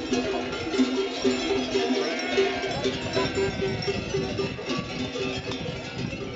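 Many bells worn by a moving flock of sheep clanking irregularly as the animals walk, with sheep bleating now and then, a few calls around two to three seconds in.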